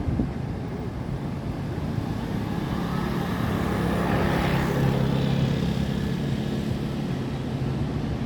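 A motor vehicle passing by: its engine and road noise swell to a peak about halfway through and then fade.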